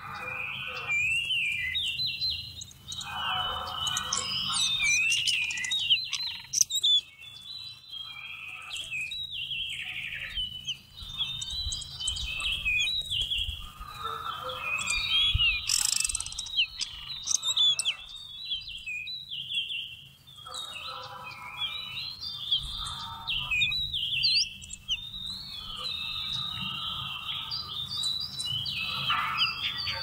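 Magpie-robin singing: a continuous stream of varied, quickly changing whistled notes and chirps.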